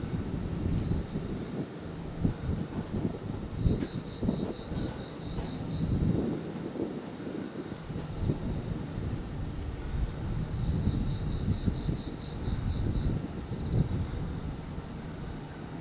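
Summer insects shrilling steadily, with a second insect's pulsed chirping at about four pulses a second coming in twice, over an uneven low rumble.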